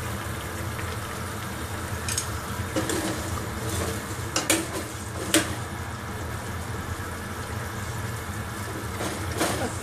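Beef broth simmering and bubbling in a stainless steel stockpot while a utensil stirs it, knocking sharply against the pot a few times, loudest about four and a half and five and a half seconds in.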